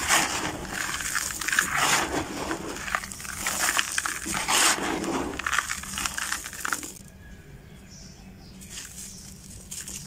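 Dry, gritty block crushed and rubbed apart by hand over a bucket: crunching and crackling of crumbling grit, with grains trickling down. It goes quieter for a moment about seven seconds in, then picks up again near the end.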